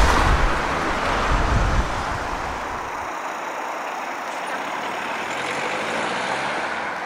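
Flatbed truck driving past on the street, its low engine rumble strongest in the first seconds and dying away after about three seconds, leaving steady traffic noise.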